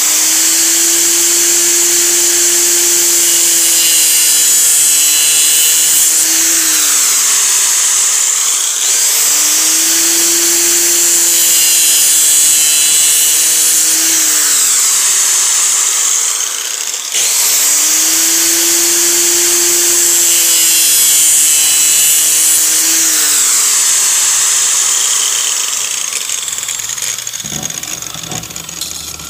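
Electric angle grinder with an abrasive disc, used as a sander on a small PVC pipe elbow, running loudly with a high hiss. Its motor pitch sags three times, about every eight seconds, and the sound fades out near the end.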